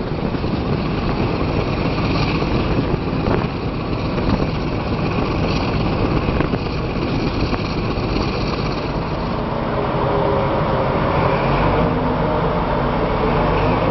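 Steady rumble and rattle of a moving train, with the running noise of its BB304 diesel-hydraulic locomotive. About ten seconds in the sound changes to a steadier diesel engine drone with low humming tones.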